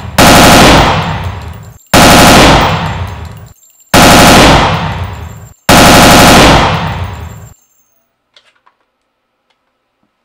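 Rifle fire in four bursts about two seconds apart, each starting abruptly and dying away over about a second and a half. The firing stops about seven and a half seconds in.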